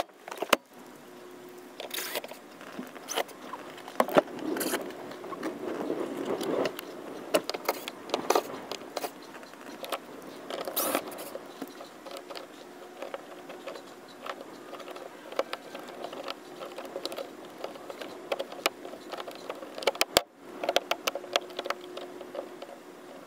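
Plastic lens of a 1986 Chevrolet Caprice's dome light being worked loose and pulled off by hand. It makes irregular small clicks, taps and scrapes.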